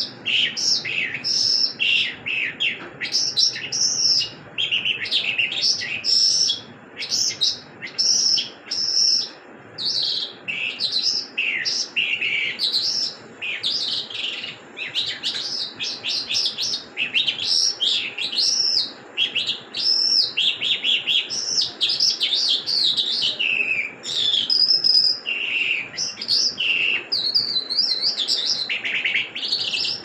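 Caged skylark (Irani jal) singing a long, varied song of quick high chirps, trills and warbled phrases, broken only by brief pauses.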